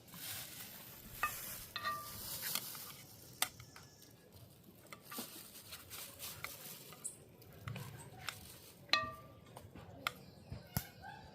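A metal utensil stirring in a cooking pot, with scattered sharp clinks against the metal, a few of which ring briefly.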